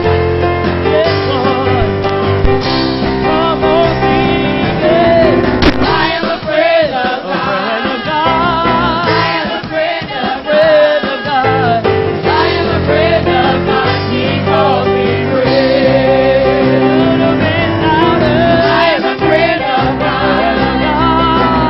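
Gospel praise team singing with a live band: several voices hold and bend sung notes over sustained keyboard and bass, with the low end dropping away for a few seconds in the middle before the full band returns.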